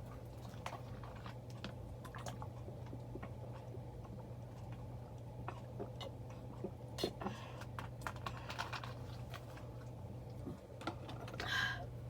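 Casablanca Victorian ceiling fan running on its lowest speed: a steady low motor hum, with scattered small clicks and a short rustle near the end.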